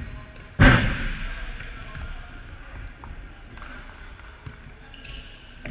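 A futsal ball struck hard: one loud bang about half a second in, echoing around the big sports hall, then quieter court noise.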